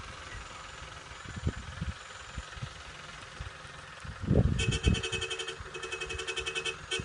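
Troller 4x4's engine running faintly at a distance, mixed with low thumps of wind on the microphone, one stronger about four seconds in. From about four and a half seconds, a rapid, evenly pulsing high buzz comes in three runs.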